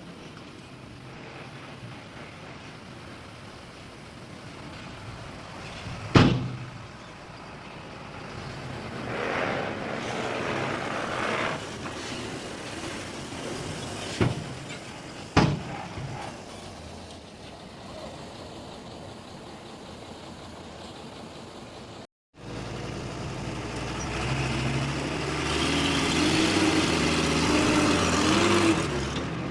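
Heavy earthmoving machinery at work: a diesel engine runs throughout, with three sharp bangs and two short stretches of rushing noise. The sound cuts out for a moment about two-thirds of the way in, then an engine runs louder, its pitch rising and wavering as it revs.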